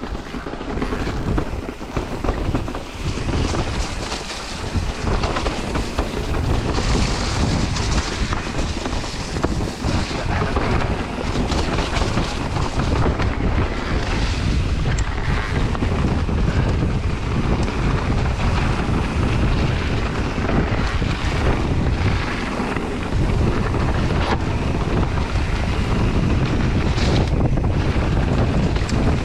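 Wind buffeting the microphone of a riding mountain biker, with tyres rolling over a rough trail and the bike knocking and rattling over bumps at speed.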